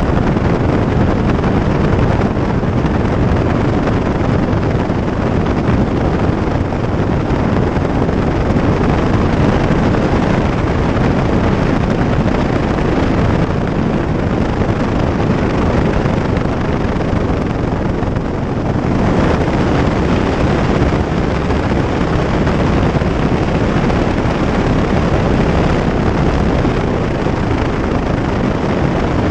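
Single-engine light aircraft's engine and propeller running steadily while taxiing, heard from a camera mounted outside on the airframe with wind on the microphone. The sound steps up slightly about two-thirds of the way through.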